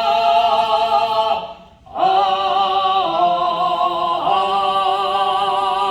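A singer in Korean traditional sori style holding long notes with a wide vibrato. There is a short break for breath about two seconds in, then a phrase of long notes stepping between pitches.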